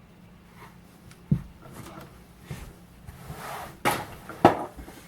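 Small objects being handled: a few sharp clicks and knocks, the loudest two near the end, with a short rustle just before them, over a faint steady hum.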